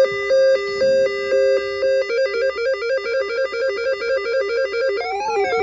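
Weather alert radios sounding their electronic alarm: a shrill two-tone beep alternating about twice a second, speeding up to a quicker alternation about two seconds in. Near the end a second, warbling siren tone joins as the other radio's alarm goes off.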